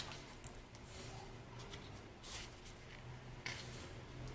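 Pages of a glossy album photobook being turned by hand: a few soft paper swishes and rustles.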